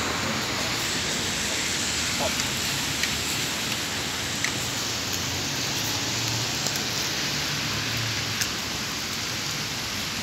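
Steady rain hiss with scattered drip ticks, over a faint low hum of road traffic.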